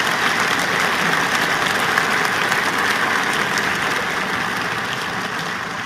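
Large audience applauding, a dense patter of many hands clapping that slowly fades away over the last couple of seconds.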